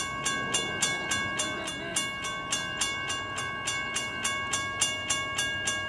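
Railroad grade-crossing warning bell ringing in a quick, even rhythm of about four strikes a second, each strike leaving a lasting metallic ring. It is sounding because a train is approaching the crossing.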